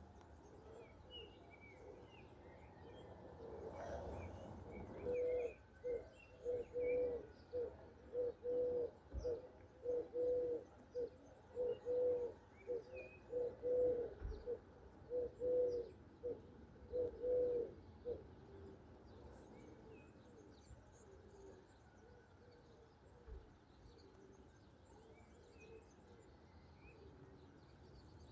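A dove cooing: a long series of short, low coos repeated evenly, a little under one a second, for about thirteen seconds, then stopping. Small songbirds chirp faintly and irregularly throughout.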